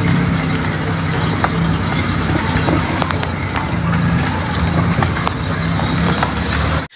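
A vehicle engine running steadily as it drives, heard from on board: a low hum with road noise and a few short knocks. It cuts off abruptly near the end.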